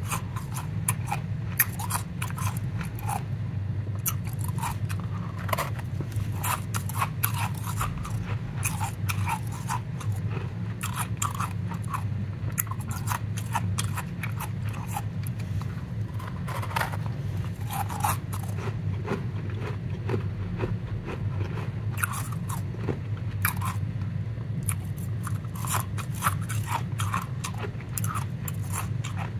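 Powdery ice crunching and crackling as gloved hands squeeze and crumble a packed lump of it: a dense, irregular run of small crisp crunches, several a second, over a steady low hum.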